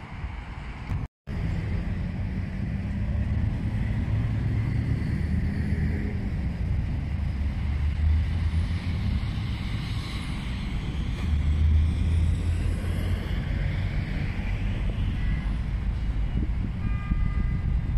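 Road traffic passing, a steady low rumble with cars swelling and fading. The sound cuts out completely for a moment about a second in.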